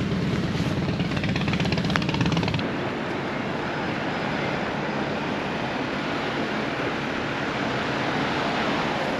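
Honda GB350's single-cylinder engine running with a fast, even exhaust pulse for the first two and a half seconds. Then the engine note drops away, leaving steady wind and road noise as the bike rolls on.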